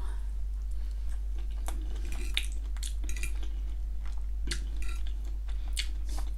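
Close-up chewing of a mouthful of ham and potato gratin in cheese sauce, soft and wet, with scattered clicks. In the second half a metal fork scrapes and clinks on a ceramic dinner plate. A low steady hum runs underneath.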